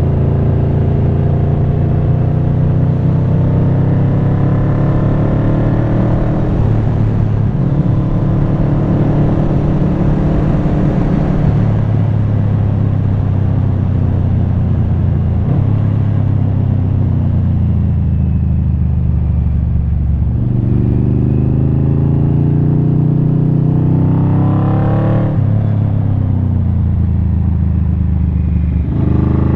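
1995 Yamaha Vmax 1200's V4 engine through a Delkevic carbon slip-on exhaust, running under way and heard from the rider's helmet. The engine note sinks slowly as he rolls off through the middle, then climbs in several rises with the throttle in the later part.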